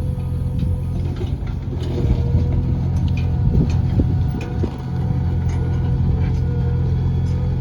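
JCB backhoe loader's diesel engine running steadily, with scattered sharp clicks and knocks over it. It gets louder between about two and five seconds in.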